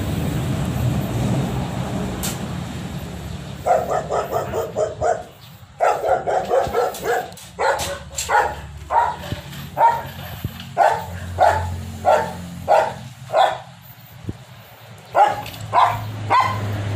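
Dog barking repeatedly, first in a fast run and then about one bark every half second, with a short pause before a final run of barks. A steady rushing noise comes before the barking starts, a few seconds in.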